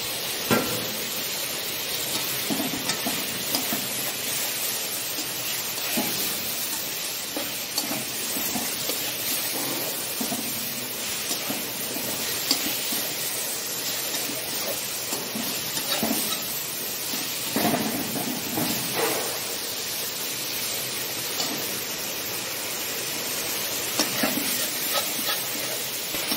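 Okra sizzling in hot oil and spices in a steel kadai, stirred with a metal slotted spoon that scrapes and clinks against the pan now and then.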